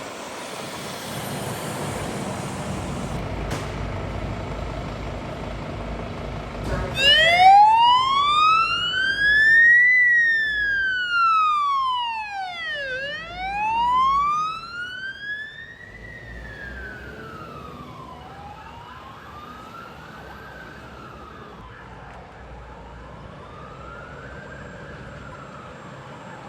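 Rushing noise, then about seven seconds in an emergency vehicle's siren starts a slow wail, rising and falling about every three seconds. It is loudest at first and grows fainter over the second half.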